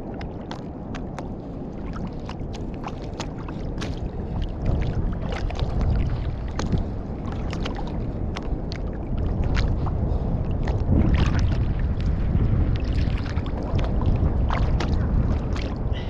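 Sea water lapping and slapping against a sit-on-top kayak hull, with wind rumble on the microphone and scattered sharp ticks of small splashes. It grows louder after the first few seconds.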